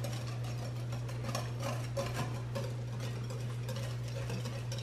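Wire balloon whisk beating mayonnaise and seasonings in a glass mixing bowl: rapid, even clicks and scrapes as the wires strike the glass. A steady low hum runs underneath.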